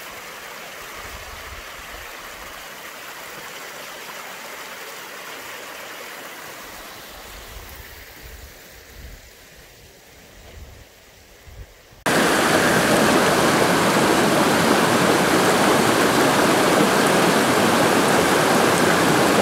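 Glacial meltwater stream rushing over rocks, a loud, dense, steady rush that starts suddenly about twelve seconds in. Before that there is a fainter rush of water that fades away.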